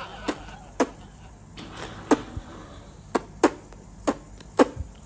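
A person punching their own puffed-out cheeks with their fists, forcing air out through pursed lips. About ten sharp pops and puffs come at uneven intervals.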